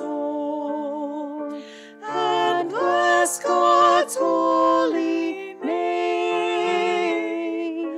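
A slow Taizé chant sung with held, wavering notes over a soft sustained accompaniment, the phrases breaking off about 2 s and 5.5 s in.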